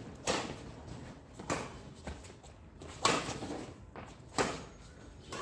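Badminton rackets striking a shuttlecock back and forth in a rally: four sharp hits about a second and a half apart, the third the loudest.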